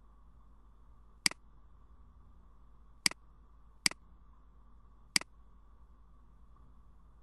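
Four sharp computer mouse button clicks, irregularly spaced, the first about a second in and the last about five seconds in, over a faint steady electrical hum.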